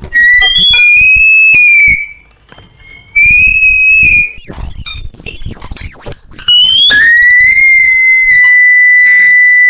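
Microphone feedback squeal with the gain at maximum: a loud, high-pitched whine whose pitch jumps and glides between tones. It cuts out about two seconds in, returns about a second later, and settles into one steady tone near the end.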